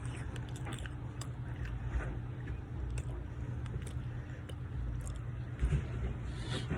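Close-miked chewing of a chocolate chip cookie: scattered small crunches and mouth sounds over a steady low hum.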